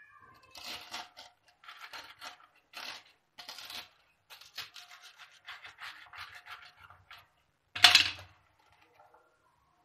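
Pizza cutter wheel rolled through crisp toasted sandwich bread on a wooden chopping board: a run of short, crunchy scraping strokes, then one louder knock near the end.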